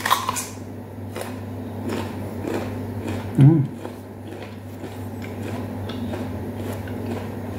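A bite into a firm, unripe apricot with a sharp crunch at the start, then chewing with small wet clicks. A brief hummed "mm" about three and a half seconds in, over a steady low hum.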